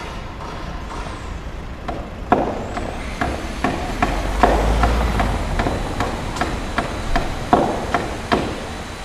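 Construction site noise: a steady machinery rumble with irregular sharp hammer knocks, starting about two seconds in, with a low rumble swelling in the middle.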